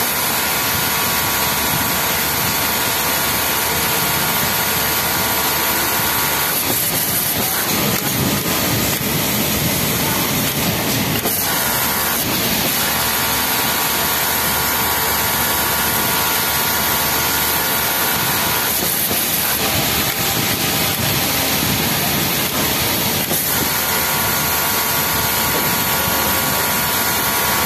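Yamato flatlock industrial sewing machine running while hemming a T-shirt: a steady whine that runs in stretches of several seconds and breaks off briefly a few times as the operator stops and repositions the fabric. Underneath is a constant loud hiss of machinery.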